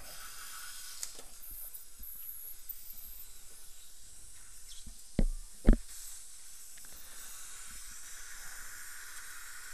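Steady hiss of dental operatory equipment, with two sharp clicks about five seconds in, half a second apart.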